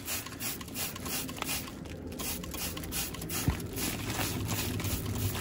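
Trigger spray bottle of leak-detection solution squirted again and again onto a refrigerant line's flare fitting: short hissing spritzes, about three a second, with a brief pause midway, over a low steady hum.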